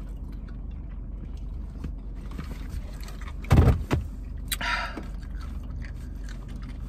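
Steady low hum of a car's engine running, heard from inside the cabin, with one loud thump about three and a half seconds in and a short rustle just after it.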